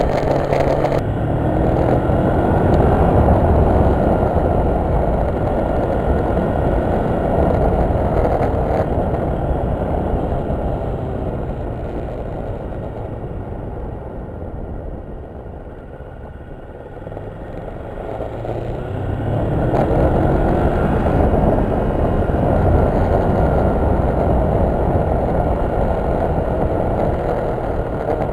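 A motor vehicle driving, with engine and road noise mixed together. It swells and fades, dipping to its quietest a little past the middle before building up again, and the engine pitch rises briefly a couple of times.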